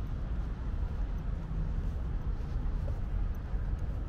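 Steady low rumble of outdoor city ambience, with no distinct events.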